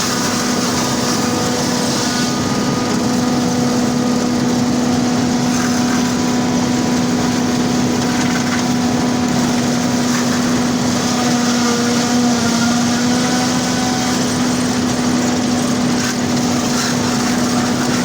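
Combine harvester running steadily while harvesting corn: a constant engine drone at one unchanging pitch, with fainter steady whines above it.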